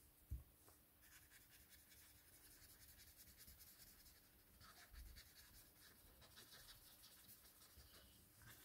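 Faint, soft scratchy rubbing of a paper blending stump worked over coloured pencil on card, with a soft knock about a third of a second in.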